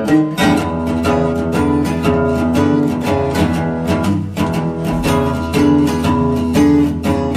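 Background music: a guitar-led instrumental with notes plucked on a steady beat.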